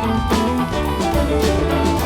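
Live band playing an instrumental jam section of a funk-rock groove: lead electric guitar over bass, keyboard and a drum kit keeping a steady beat, without vocals.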